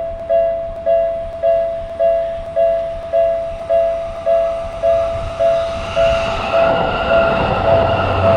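Japanese level-crossing warning bell ringing its steady "kan-kan", about two strikes a second, each strike two close tones together. From about five seconds in a train's running noise swells as it approaches the crossing.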